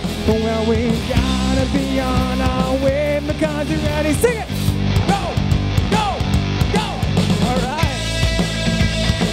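Live rock band playing: electric guitar, bass guitar and drums, with a singer's voice sliding over the top.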